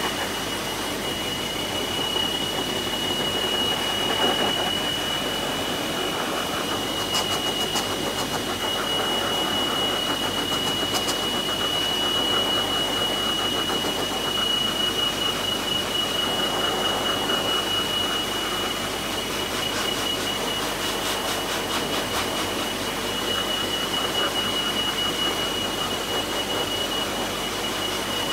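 High-velocity pet force dryer blowing a steady blast of air, with a constant high-pitched whine over the rush of air.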